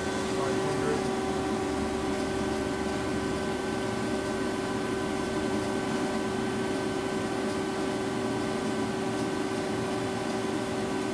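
Lucas 542B-84 horizontal boring mill's spindle and three-speed gearbox running steadily in the high gear range, a steady whine of several tones over a mechanical hum.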